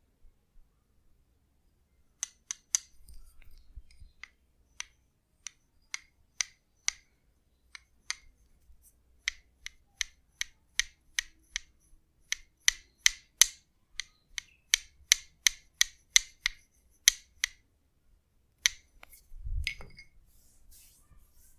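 Tok-Sen tapping, a wooden mallet striking a wooden wedge: a long series of sharp, dry clicks, each with the same bright ring. They come scattered at first, then run steadily at about two to three a second. A soft dull thump follows near the end.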